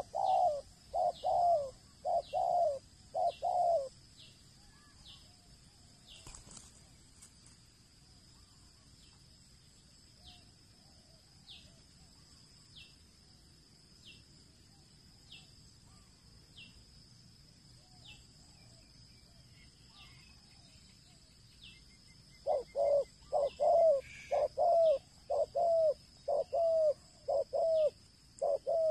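Spotted doves cooing in quick runs of repeated coos, about two a second: one run in the first few seconds, then a long pause, then another run from about three-quarters of the way through.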